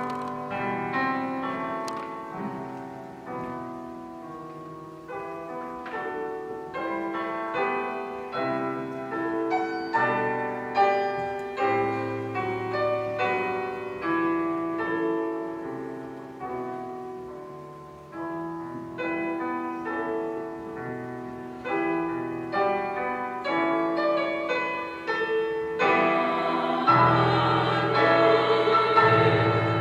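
Piano playing a slow, quiet passage of chords and single notes, each note fading away. About 26 seconds in, a group of women's voices enters singing together over the piano, louder than the piano alone.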